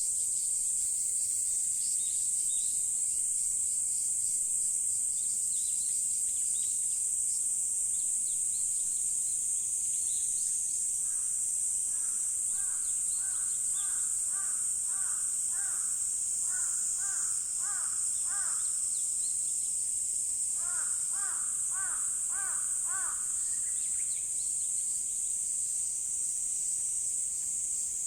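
A crow cawing in two runs of quick, repeated caws in the middle stretch, over a steady high-pitched insect chorus that runs throughout.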